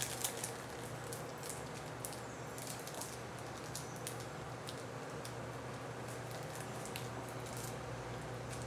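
Faint crinkling and rustling: a 2009 Donruss Classics card pack being torn open and its trading cards handled, with scattered small crackles over a steady low hum.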